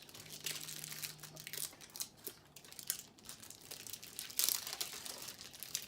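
Plastic toy packaging being crinkled and torn open by hand, in irregular rustles, loudest about four and a half seconds in.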